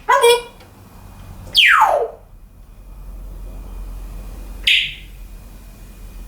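African grey parrot calling: a short pitched call at the start, then a fast falling whistle about one and a half seconds in, and a short harsh squawk near the end.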